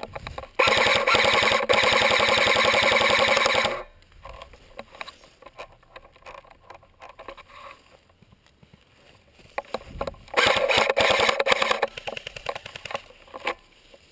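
Airsoft gun firing on full auto in two long bursts of rapid, even shots, each about three seconds, the second starting about ten seconds in, with scattered faint clicks between.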